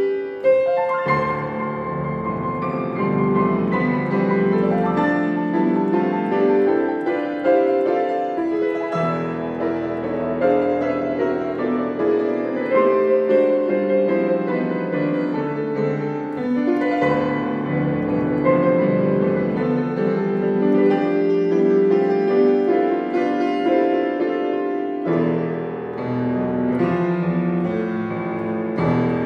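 Grand piano played solo, a continuous piece of notes and chords without a break.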